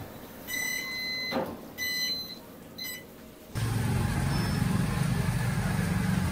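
Three electronic beeps at the same high pitch: a long one, a shorter one and a brief one. About three and a half seconds in, a steady, louder background noise that sits low in pitch cuts in suddenly.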